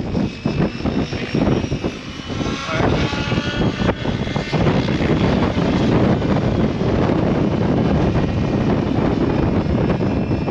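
Goosky RS7 electric RC helicopter in flight: the rotor and motor whine shifts up and down in pitch. Gusts of wind rumble on the microphone.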